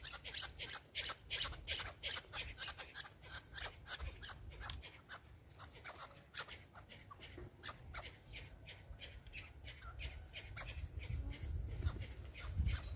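Partridges calling: a fast, even run of short, sharp clucking calls, about three or four a second, fading somewhat in the middle and picking up again toward the end.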